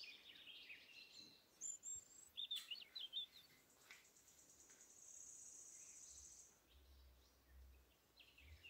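Faint bird chirping, a few short chirps followed about halfway by a brief high trill, over near-silent room tone.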